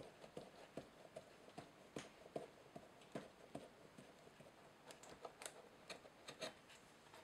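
Faint, quick clicks, about two or three a second and slightly uneven: a small drill twisted by hand as it bores holes into the card wall of a model building.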